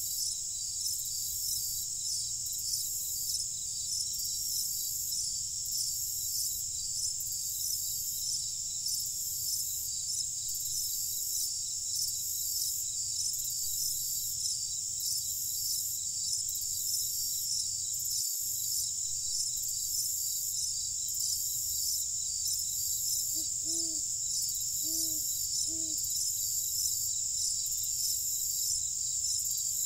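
Crickets chirping in a steady, regular pulsing chorus, over a faint low rumble. About three-quarters of the way through, three short low calls from another animal sound.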